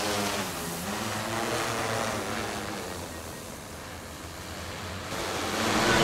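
DJI Matrice 300 quadcopter's propellers humming with a rush of rotor wash as it takes off and climbs. The hum grows fainter as it rises away and louder again near the end.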